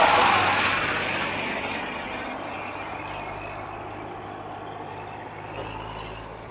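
Massey Ferguson 1035 DI tractor's three-cylinder diesel engine running as it passes close by, loudest at first and then fading over a couple of seconds into a steady low hum as it pulls away.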